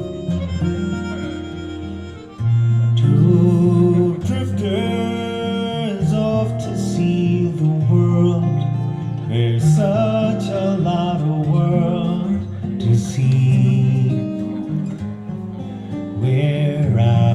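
Recorded music played over a hi-fi loudspeaker system: a harmonica melody over acoustic guitar, which cuts off abruptly at the very end.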